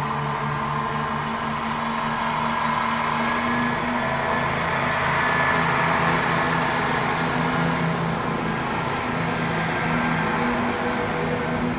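Southern Class 171 diesel multiple unit running over an ungated level crossing, its engine and wheel noise swelling to a peak about six seconds in as it draws near and passes, over the crossing's repeating warning alarm.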